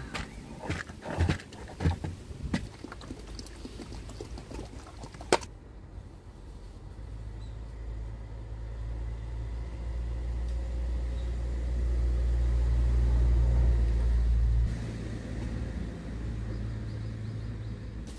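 Hard plastic clicks and knocks as a black plastic tray is pushed into a white plastic hooded cat litter box, ending in one sharp click about five seconds in. After that a low rumble builds over several seconds and cuts off suddenly.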